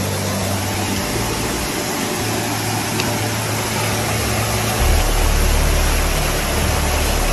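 Trail motorbike engine running under a loud rushing hiss; its low hum steps to a different pitch a couple of times and grows much stronger about five seconds in.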